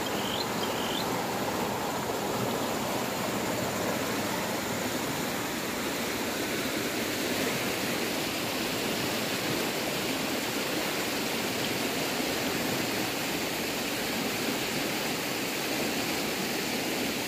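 A muddy river running high and fast, its water rushing steadily over shallow rapids.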